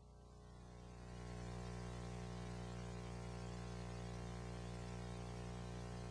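Faint, steady electrical mains hum with a light hiss, coming in about a second in after near silence.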